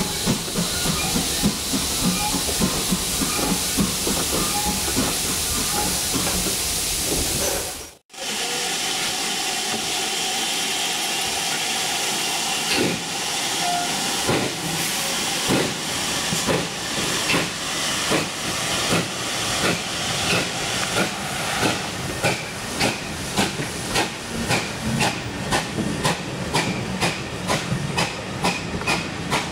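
GWR Hall class 4-6-0 steam locomotive hissing steam while it stands at the head of its train. After a cut it starts away: its exhaust beats come slowly at first and quicken to about two a second as the coaches roll past.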